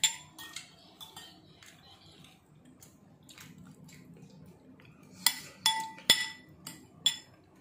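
Cutlery clinking against dishes during a meal: a few light taps, then a cluster of sharper clinks with a short ring about five to seven seconds in.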